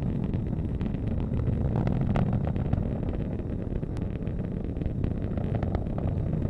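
Atlas V booster's RD-180 engine rumbling steadily during ascent, with a crackle running through it.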